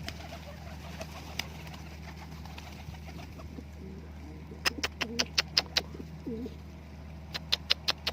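Pigeons cooing softly, with two quick runs of sharp clicks, about five or six a second: one run about halfway through and another near the end.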